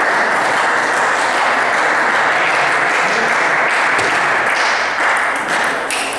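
Spectators applauding steadily, with a few faint table tennis ball hits under the applause. The applause eases off near the end.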